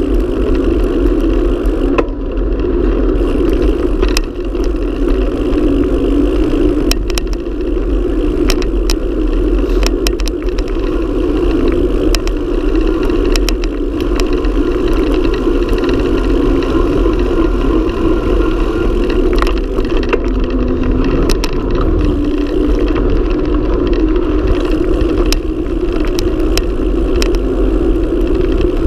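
Steady rush of wind over the action camera's microphone and the roar of mountain bike tyres on asphalt during a fast downhill, with scattered clicks and rattles as the bike hits bumps and potholes.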